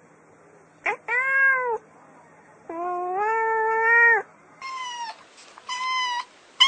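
A cat meowing four times: a short arched meow about a second in, a longer drawn-out meow, then two shorter meows near the end.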